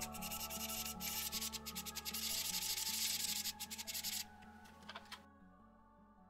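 Rebuilt Traxxas 2075 steering servo running under power, a raspy whirring buzz with irregular clicks that stops abruptly about four seconds in, with one more short burst just after; quiet background music runs underneath and fades out.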